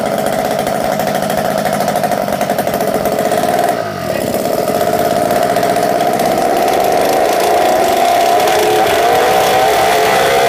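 Ported 80 cc two-stroke bicycle engine kit running. Its revs dip briefly about four seconds in, then climb and hold at a higher, steady speed.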